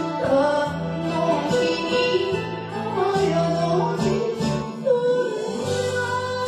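Enka song: a solo voice sings a slow, wavering melody line over a band backing with a steady bass.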